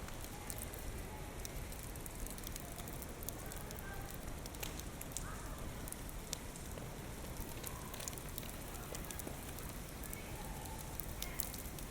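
Steady typhoon rain with a low wind rumble underneath, scattered with many sharp ticks of drops striking hard surfaces.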